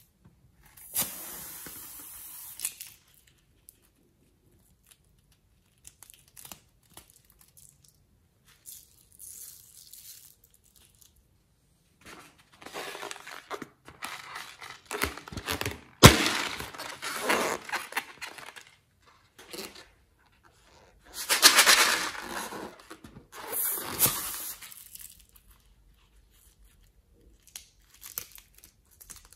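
Scissors cutting into rubber balloons and the latex crinkling and tearing, in separate bursts with quiet gaps between them. There is a sharp click about halfway through.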